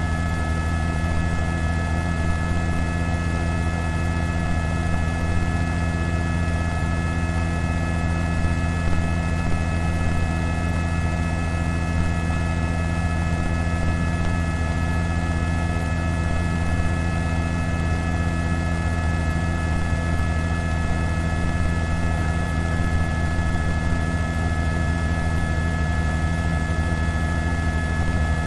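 Steady, loud helicopter cabin drone: a low hum with several high, steady whining tones above it, unchanging throughout.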